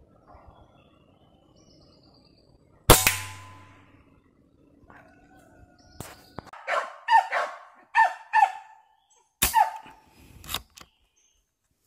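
A single shot from a PCP air rifle about three seconds in: a sharp crack that dies away over about a second. A few seconds later comes a run of short bird calls, each falling in pitch, followed by two sharp clicks near the end.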